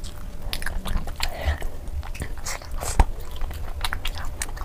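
Close-miked chewing of saucy meat curry: wet mouth sounds and quick clicks and smacks, with one sharper click about three seconds in.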